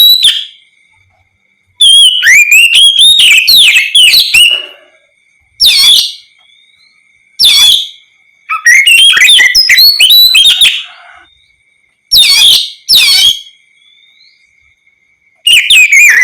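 Oriental magpie-robin (kacer) singing loudly in bursts of rapid gliding whistles and trills, about seven phrases separated by short pauses. A faint steady high tone runs between the phrases.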